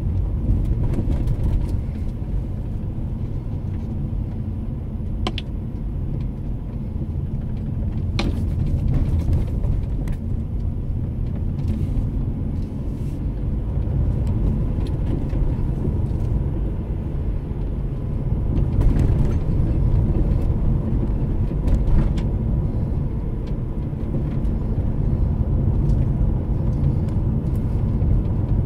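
Car driving, heard from inside the cabin: a steady low rumble of engine and tyres, with a few brief knocks or rattles scattered through it.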